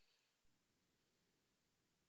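Near silence: faint room tone, with one soft low tap about half a second in.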